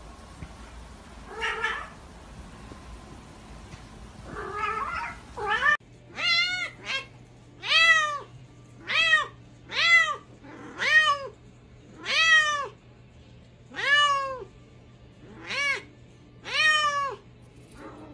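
A long-haired white cat meowing over and over, about ten loud meows roughly a second apart, each rising and then falling in pitch. Before them come a few fainter, shorter calls.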